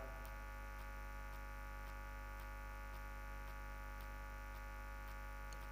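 A faint, steady electrical hum and buzz with no other sound.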